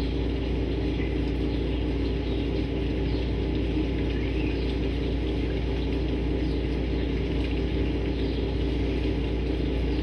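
Steady low mechanical hum running without change, with a few faint, short bird chirps over it.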